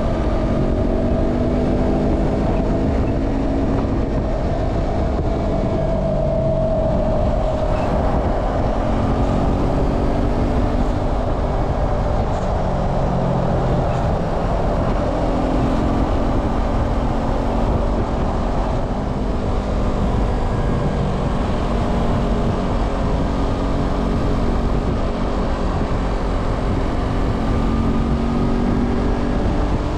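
Motorcycle engine running at road speed on an expressway, its note drifting up and down a little with the throttle, over a steady rush of wind and road noise.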